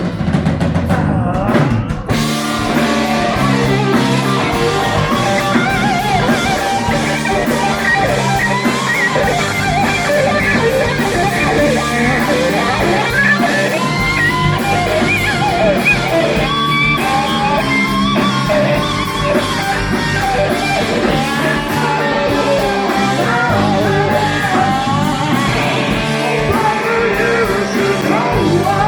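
Live rock band playing a song: electric guitars over a drum kit.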